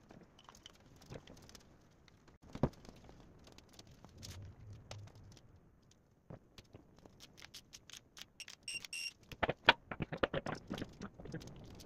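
Light metal clinks and knocks of engine parts being handled and set down at a bare engine block, with a cluster of rapid clinks near the end. A short run of high electronic beeps sounds about nine seconds in.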